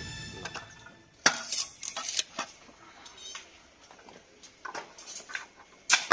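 Background music fades out, then steel reinforcing bar rods and stirrups clink and knock against each other and the bending tool in a series of sharp metallic clinks. The loudest clinks come about a second in and again just before the end.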